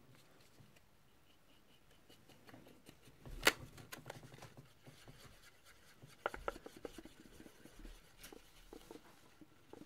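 Paintbrush stirring and mixing enamel paint in a clear plastic tray, faint scraping and tapping, with a sharp plastic click about three and a half seconds in and a few more clicks past the middle.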